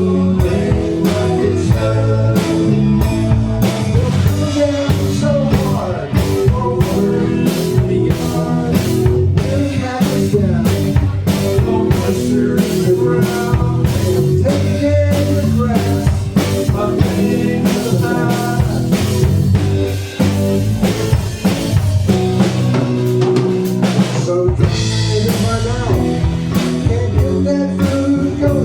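Live blues band playing, a drum kit keeping a steady beat under guitar, with no words sung.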